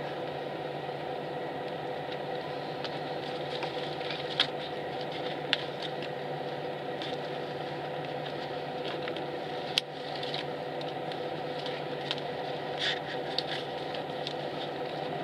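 Steady idling hum inside a stationary highway coach's cabin, with a few short sharp clicks, the loudest about ten seconds in.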